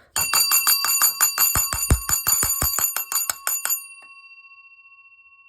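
Fire alarm bell gong struck in a fast, even run of about six strikes a second for roughly three and a half seconds. The strikes then stop and the gong rings on, fading slowly.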